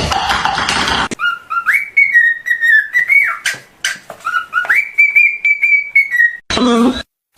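Parrot whistling a run of short clear notes, some sliding up or down in pitch, then several held at the same high pitch.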